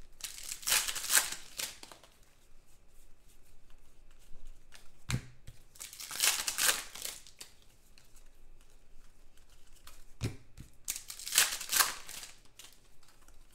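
Foil wrapper of a 2019 Donruss football card pack being torn open and crinkled, in three bursts of tearing and crinkling with a couple of light knocks in between.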